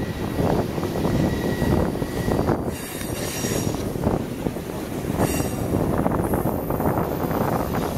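A train rolling close by: a steady rumble and clatter of wheels on track, with brief high-pitched wheel squeals about three and five seconds in.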